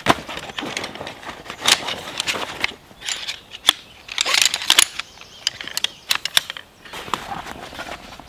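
A folding camp chair being set up by hand. Nylon fabric rustles as the stuff sack comes off and the camo seat is pulled on, and the metal frame's legs give a series of sharp clicks and clacks as they are unfolded. The loudest clack comes right at the start.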